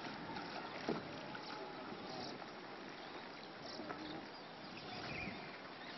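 Steady, fairly quiet hiss of river water in the open air, with a single sharp knock about a second in.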